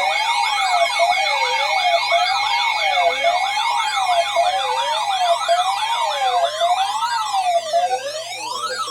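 Electronic emergency alert siren tones: several wailing tones sweep up and down at different rates over steady high-pitched tones, then stop near the end. The alert introduces a severe thunderstorm warning.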